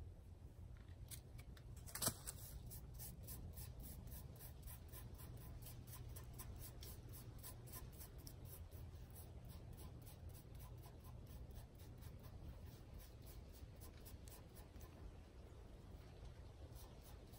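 Faint scratching and rubbing of fingertips working black powder into a wet cotton cloth on a wooden stump, with one sharper click about two seconds in.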